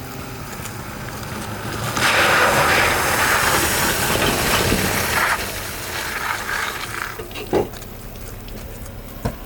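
Jeep Wrangler driving through mud and water off-road: a loud rush of splashing about two seconds in that lasts roughly three seconds, then quieter, with two sharp knocks near the end.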